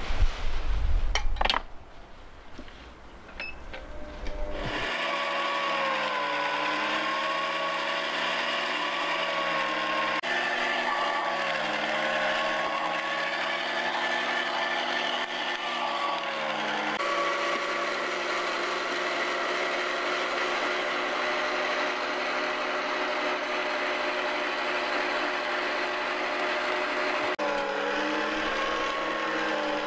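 Electric meat grinder switched on about five seconds in and then running steadily as it minces onion fed in by hand; the motor hum wavers and dips slightly in pitch as the load changes.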